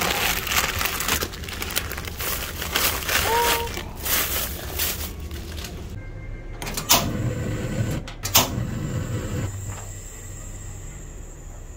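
Plastic instant-noodle packets rustling as they are taken from a shop shelf. Then a gas stove is lit: a few sharp igniter clicks about seven and eight seconds in, and the burner catching with a low rush of flame.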